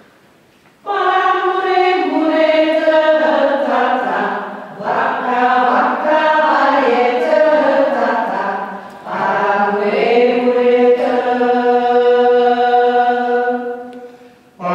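Small mixed choir of men's and women's voices singing together in phrases, with two short breaks, ending on a long held chord.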